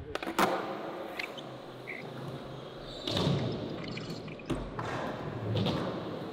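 Skateboard wheels rolling on a smooth concrete floor as the skater pushes along, with a sharp clack about half a second in and another knock about four and a half seconds in.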